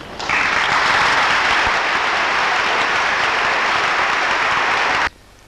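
Sustained applause from a large audience clapping, starting just after the beginning and cutting off abruptly about five seconds in.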